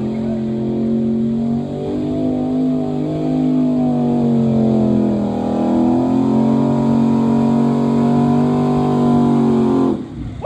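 Nissan Titan pickup's V8 engine running at high revs under heavy load as it drags a weight-transfer pulling sled, the pitch holding fairly steady with small rises and dips. It cuts off suddenly near the end.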